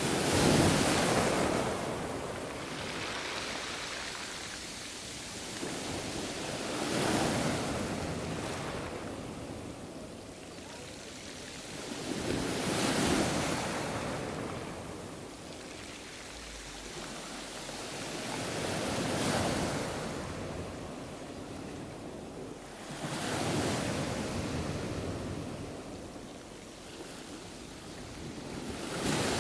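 Black Sea waves breaking on the shore, each wave swelling and washing back about every six seconds, with some wind.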